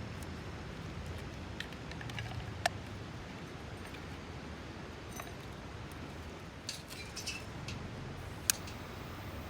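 A few scattered sharp clicks and light clinks, like small hard objects knocking together, over a steady low background rumble; a small cluster comes about seven seconds in.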